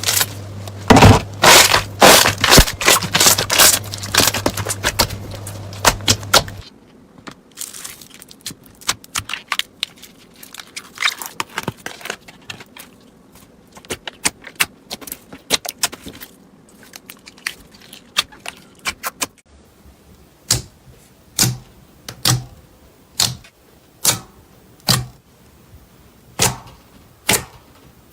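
Slime being pressed and poked by hand, giving sharp crackling clicks and pops. The crackling is loud and dense for the first six seconds or so, then turns finer and quieter, and in the last eight seconds it becomes single evenly spaced pops, a little more than one a second.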